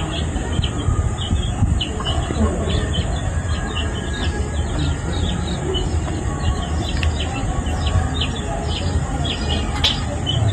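Small birds chirping again and again in short notes over a steady high insect drone, with a low rumble underneath.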